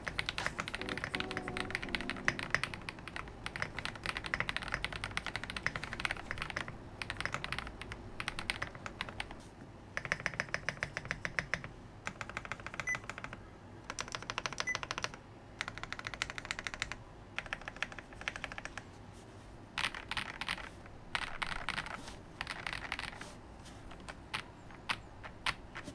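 Typing on an Ikki68 Aurora mechanical keyboard with a polycarbonate plate, all-silicone dampening and factory-lubed WuqueStudio Morandi long-pole switches, giving an extremely soft, borderline mushy key sound. The keystrokes come in runs of fast typing broken by short pauses.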